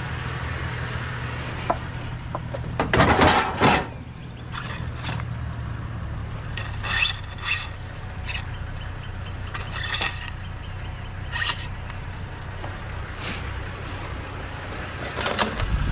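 Pieces of scrap metal and plastic being handled and tossed while sorted, a series of separate clinks, knocks and scrapes every second or so, some metal pieces ringing briefly. A steady low hum lies underneath and fades about halfway through.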